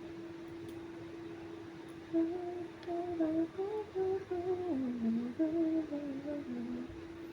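A person humming a short tune for about five seconds, starting about two seconds in, the melody dipping low near the middle; a steady background tone runs underneath throughout.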